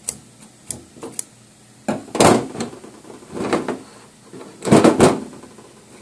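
Scissors snipping through hair wrapped around a Dyson vacuum's beater bar, with the bar handled against a steel table. A few light clicks, then three louder rasping snips or scrapes about a second and a half apart.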